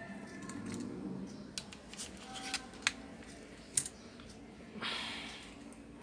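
Small clicks and taps from handling wires and small parts on a rubber work mat, with a short rustle about five seconds in.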